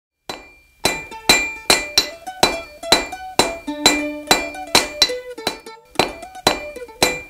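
Hammer striking an anvil in a steady rhythm, about two blows a second, each blow ringing at the same high pitches. A plucked-string tune plays along with the strikes.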